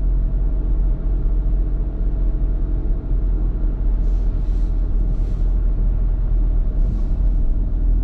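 Steady car engine and tyre rumble heard from inside the cabin while driving on a wet road, with a few brief hissing swishes about halfway through and again near the end.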